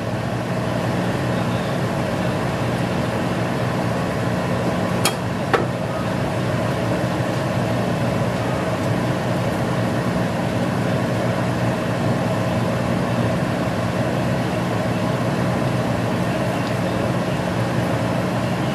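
Steady mechanical hum, with two sharp clicks about five seconds in.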